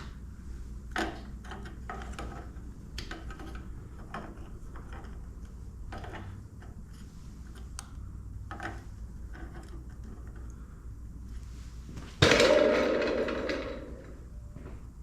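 Scattered small clicks and knocks of hand work on a motorcycle turn signal light, then a sudden loud mechanical burst near the end that fades away over about a second and a half.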